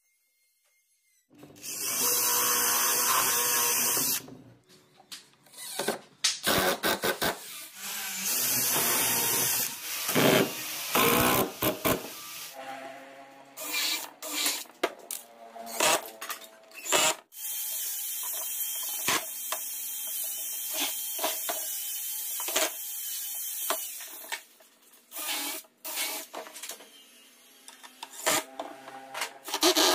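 Cordless drill running into pine legs to fix the planter's stretcher rails: a run of about three seconds, a shorter one, then a long steady run of about six seconds. Between runs are sharp knocks and clatter of the wooden parts being handled.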